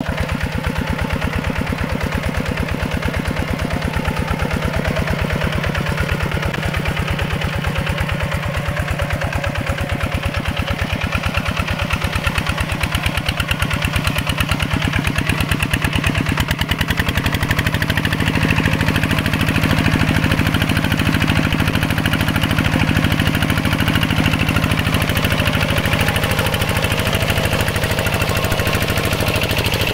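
Mini tractor engine running with a steady, rapid beat. About two-thirds of the way through, its pitch rises and it gets slightly louder, then holds at the higher speed.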